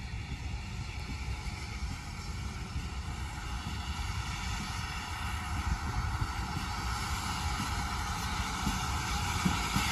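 Steam locomotive approaching with a coach: a steady hiss and rumble that grows gradually louder as it nears.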